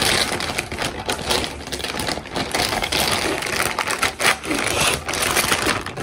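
Thin plastic courier mailer bag being torn open and crumpled by hand: dense, rapid crackling and rustling of the plastic.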